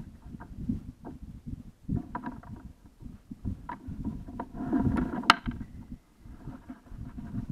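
Gusty wind buffeting the microphone, with water slapping against the plastic kayak hull and a few handling knocks. The loudest of these is a sharp click a little after five seconds in.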